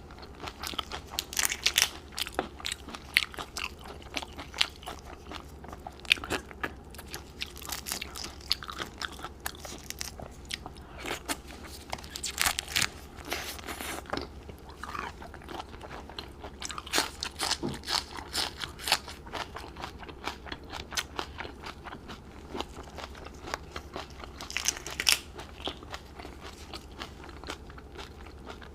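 A person biting and chewing crunchy food, with many sharp crunches coming in flurries.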